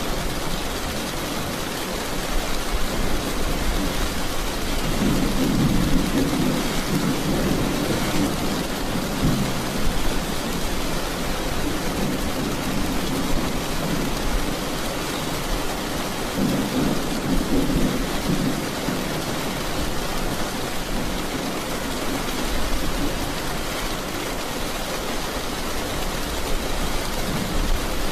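Steady heavy rain with thunder: an even hiss of rain, with low rumbles of thunder that swell and fade three times.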